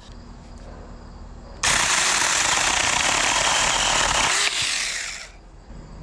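Saker battery-powered mini chainsaw with a 4-inch bar cutting through a maple branch about 2 inches thick. It starts about a second and a half in, runs for about three and a half seconds, thins for its last moment as the cut goes through, and stops. The cut is quick.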